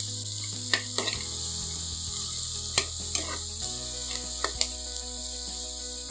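Grated carrot, capsicum and onion sizzling in butter in a non-stick kadai, stirred with a steel spoon that clicks and scrapes against the pan several times.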